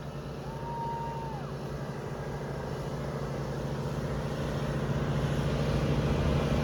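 Riding lawn mower engine running steadily, growing louder as the mower comes closer.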